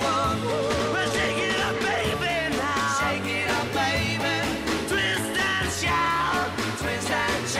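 Background song: a singing voice with a wavering melody over a steady beat and bass.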